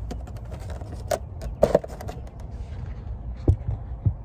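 Handling sounds as a cardboard Happy Meal box is moved about in a car's back seat: a few short knocks and rustles over a low steady rumble.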